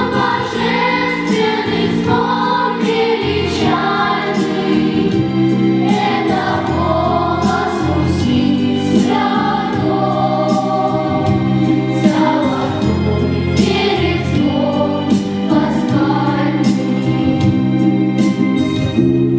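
Orthodox church bells ringing in a full peal: small bells struck in quick, irregular succession over the long, overlapping hum of larger bells.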